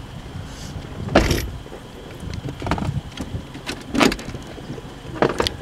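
Steady low rumble of a car, broken by four short knocks about a second and a half apart, the loudest about a second in.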